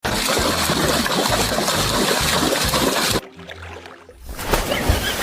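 Steady rush of running water that cuts off abruptly about three seconds in, leaving quieter background sound with a low hum.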